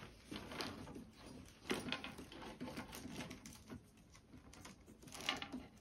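Faint, scattered clicks and light rustling of cables and the plastic flaps of a cable channel being handled.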